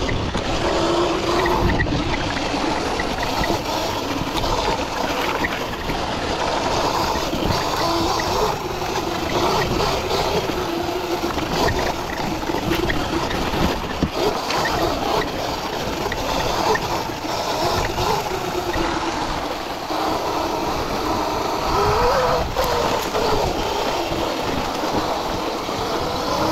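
Sur-Ron electric dirt bike being ridden: steady wind and road rush, with a faint motor whine that rises and falls in pitch as the bike speeds up and slows down.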